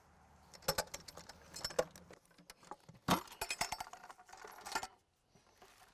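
Metal ammo can handled and opened: its latch and lid click and clank, with a loud cluster of metallic clinks about three seconds in.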